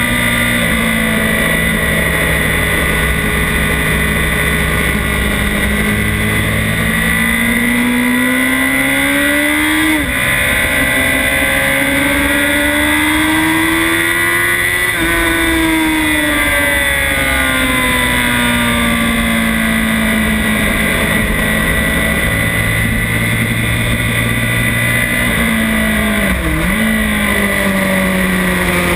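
Honda CBR1000RR inline-four engine under way at speed. The revs climb, drop sharply at an upshift about ten seconds in, and climb again. They then fall steadily off the throttle, with a quick dip and jump in revs near the end.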